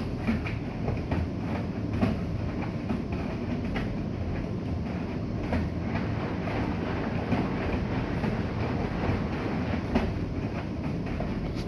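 Bosch i-Dos WGG154A10 front-loading washing machine running: a steady low rumble with frequent short, irregular clicks and knocks.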